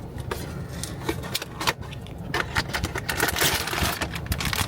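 Blind-box packaging being handled and opened: scraping, crinkling and small clicks of cardboard and wrapper, with a denser rustle about three seconds in.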